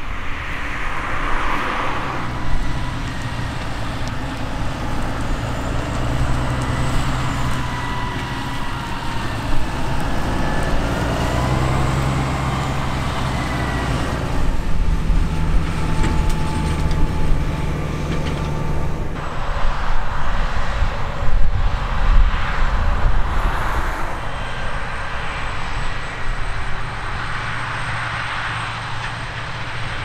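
Diesel engines of a Claas Lexion 770 TT combine harvester and a Fendt tractor working under load, a steady drone with a high whine over it. The sound changes character with shot changes about halfway and two-thirds of the way through.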